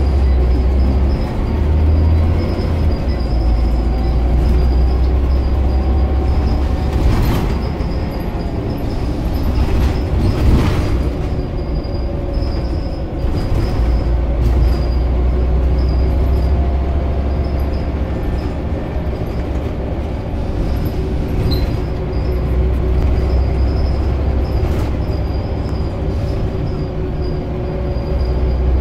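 Inside a Scania Omnicity CN230UB single-decker bus on the move: the diesel engine and drivetrain rumble deeply, under a whine that drifts slowly up and down in pitch with road speed. There are a couple of knocks and rattles from the body partway through.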